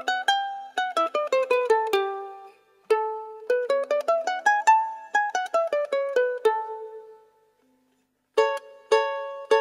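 Kala KA-P pineapple-shaped soprano ukulele played solo: single plucked notes, each ringing out, run up and down the scale in two phrases. After a brief silence near the end, repeated plucked chords begin.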